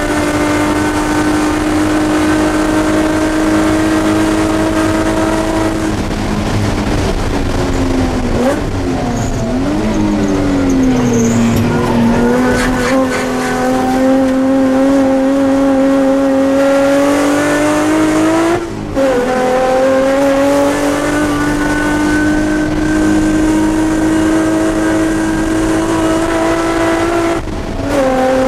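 Nissan Sentra SE-R race car's engine heard from inside the cabin at speed. The pitch holds steady, falls about six seconds in and wavers as the car slows for a corner, then climbs steadily under acceleration, broken twice by a brief drop as it shifts up, near two-thirds of the way through and near the end.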